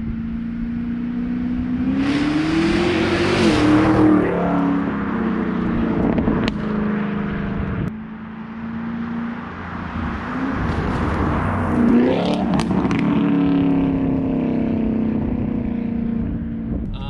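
Chevrolet Camaro ZL1 1LE with a 3-inch MBRP cat-back exhaust driving past twice. The engine note rises as the car accelerates by, once a couple of seconds in and again about two-thirds of the way through.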